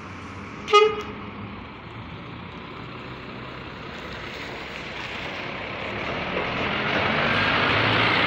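A single short horn toot about a second in, then an intercity coach's diesel engine pulling away, growing louder as the coach drives past.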